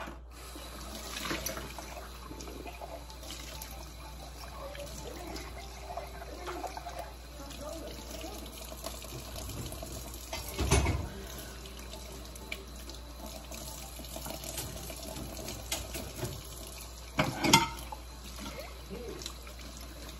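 Kitchen faucet running into a stainless-steel sink while dishes are washed and rinsed under it. Two loud knocks of dishware against the sink, one about halfway through and one near the end.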